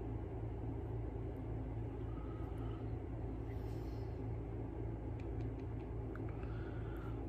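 Steady low background hum, with a few faint light clicks about five to six seconds in.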